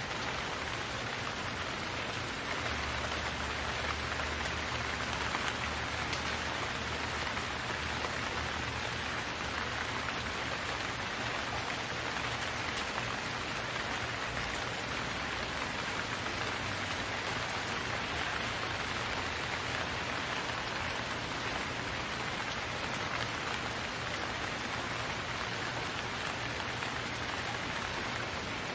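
Steady rain sound effect: a continuous even hiss of heavy rainfall pattering on a hard surface.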